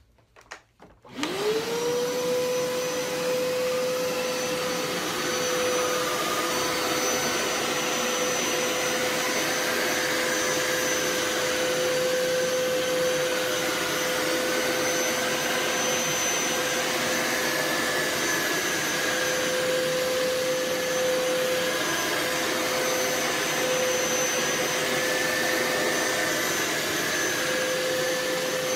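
Hoover Power Scrub Elite carpet cleaner switched on after a few clicks: its motor spins up with a quick rising whine about a second in, then runs steadily with a constant whine.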